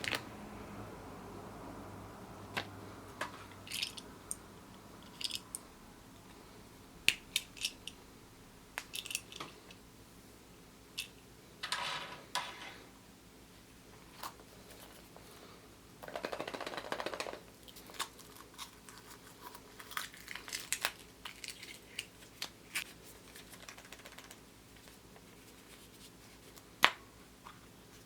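Scattered small clicks, taps and crinkles of hands handling Kinder Surprise eggs and their small plastic toy parts, with two longer rustles about twelve and seventeen seconds in.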